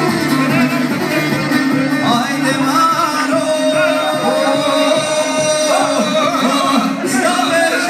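Several men singing a folk song into microphones over an amplified plucked string instrument. The singing comes in about two seconds in and holds one long note through the middle.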